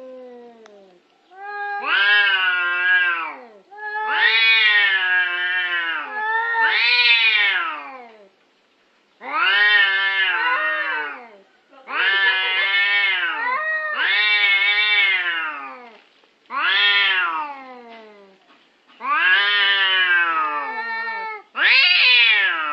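Two domestic cats in a face-to-face standoff, yowling at each other: about nine long, wavering caterwauls that rise and fall in pitch with short gaps between them. These are the threat yowls of cats squaring up for a fight.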